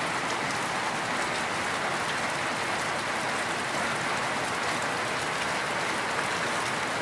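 Rain falling steadily and heavily, an even hiss of drops on the ground.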